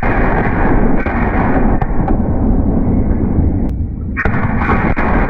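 Black-powder artillery fire at close range: a 12-pounder cannon's blast carries on as a loud, continuous rumble. A second sharp report comes about four seconds in.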